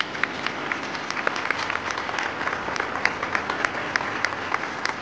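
Audience applause: a round of scattered hand claps that picks up right at the start, greeting the dancers' held final pose at the end of a dance.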